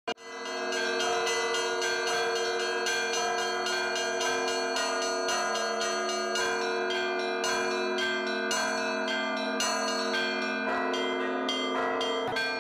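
A set of bells rung together: quick, uneven strokes on several bells of different pitches, each tone ringing on under the next.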